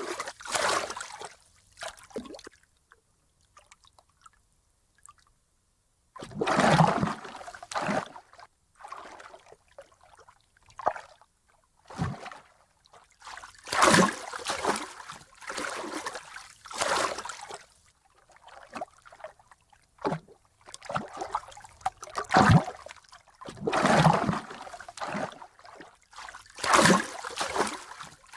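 Water splashing and sloshing in irregular surges, with a quiet pause of about three seconds a few seconds in.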